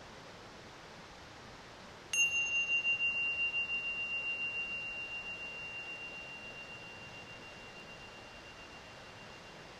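A small high-pitched metal bell struck once, ringing a single clear tone that wavers about five times a second and fades slowly over several seconds.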